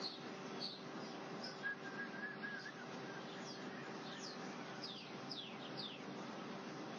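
Birds chirping: a short warbling whistle about two seconds in, then a quick run of short falling chirps in the second half, over a faint steady hiss and low hum.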